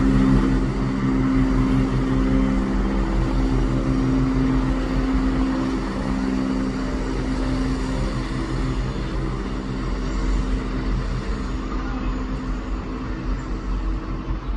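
Diesel train engine running steadily at the platform, a low hum with a slight pulsing that eases off a little toward the end.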